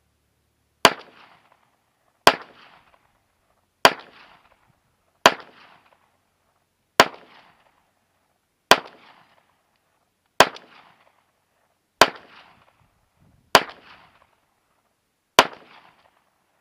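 Smith & Wesson M&P 9mm pistol fired ten times in slow single shots, about one every one and a half seconds, each shot followed by a short echo.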